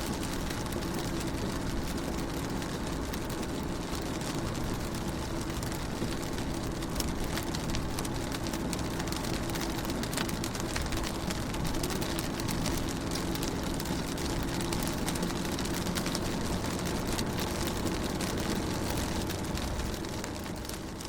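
Steady rain striking a car window, many small drop ticks over an even hiss, with a low steady hum underneath.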